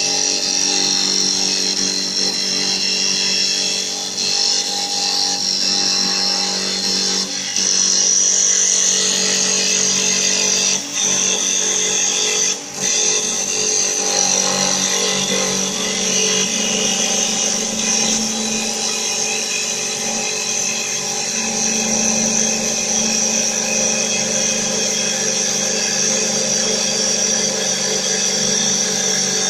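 Automatic CNC wood lathe running with a steady mechanical whine made of several pitches at once. The sound drops out briefly twice near the middle.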